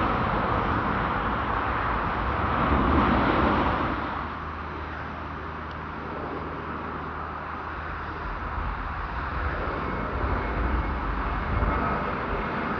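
Jet airliner engine roar, loud at first and dying away about four seconds in, then slowly building again toward the end.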